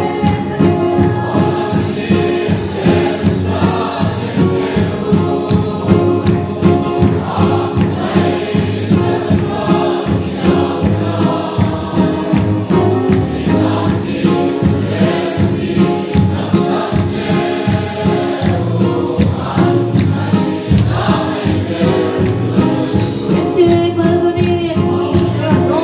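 A congregation and choir singing a lively hymn together over a steady drum beat, the music for a worship dance.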